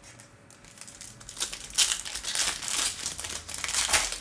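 Foil trading-card pack wrapper crinkling as it is handled and opened, starting about a second and a half in and staying loud to the end.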